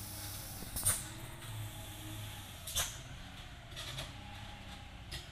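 Mitsubishi Fuso truck engine running low and steady as the heavily loaded truck creeps down a steep grade, with four short, sharp hisses spaced one to two seconds apart.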